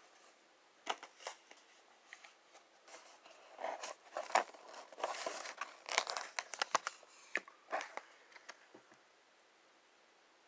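Packaging being handled and opened: irregular crinkling and tearing with sharp clicks, busiest in the middle and dying away near the end.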